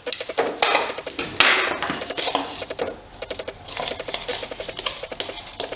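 Ratchet wrench clicking in quick runs of strokes, broken by louder rattling and scraping of metal tools.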